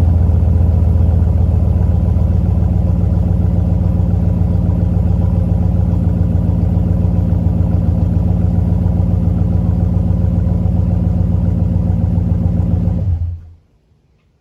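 2019 Ram pickup's engine idling after a cold start, heard at its dual exhaust pipes: a steady, deep exhaust note that eases slightly in loudness. The sound stops abruptly near the end.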